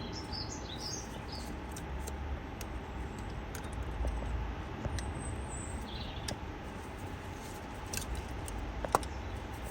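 Light plastic clicks and taps of the ignition coil wiring connectors being worked loose and unplugged by hand, a few scattered clicks over a steady low hum.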